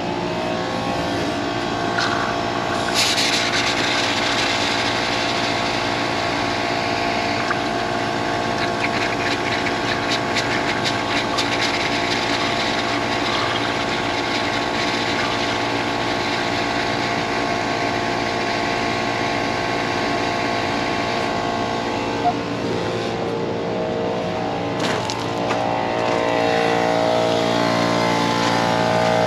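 Air compressor running steadily while it blows the water out of an RV's fresh-water lines, with compressed air hissing and spitting water from the open lines. It grows louder near the end.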